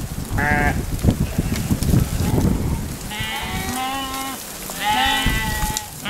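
A large flock of sheep bleating: one short bleat about half a second in, then several overlapping bleats from about three seconds in and again near the end. Underneath is the shuffling patter of many hooves on a dirt track.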